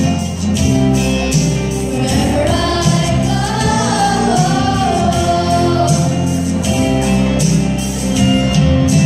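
A group of children singing together as a choir over backing music with a steady beat.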